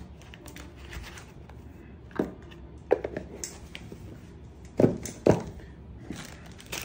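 Small objects handled and set down on a hard surface: scattered knocks and clicks, with sharper taps about two, three and five seconds in.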